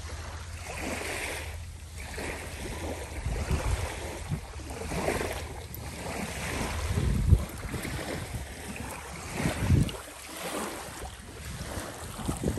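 Wind buffeting the microphone: a steady rushing hiss with strong low gusts, the biggest about three and a half, seven and ten seconds in.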